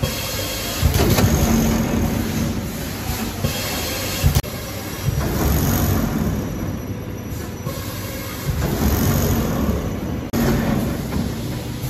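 Multi-lane powder packing machine running: a steady mechanical rumble and clatter. The sound changes abruptly about four seconds in and again near the end.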